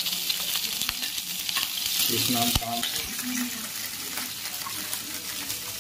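Small pieces of fat sizzling in hot oil in a kadai as they melt down, with a steady frying hiss. A steel ladle stirs and now and then clicks against the pan.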